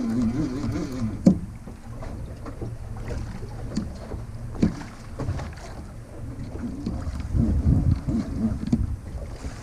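Boat at sea: a steady low rumble of the boat and water, with wind on the microphone and a few sharp knocks.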